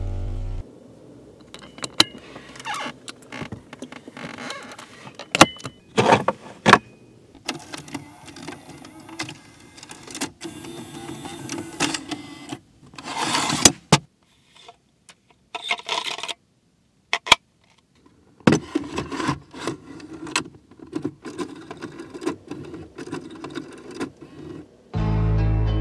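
A series of sharp clicks, knocks and short mechanical noises from a 1997 Toyota Century's cabin controls: buttons, switches and small motorised parts being worked one after another, with a quiet gap partway through.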